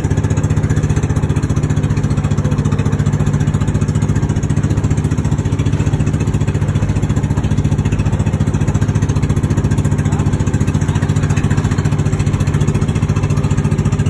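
Motorised outrigger boat's (bangka's) engine running steadily at cruising speed: a loud, even, low drone with a fast regular pulse, and a steady hiss above it.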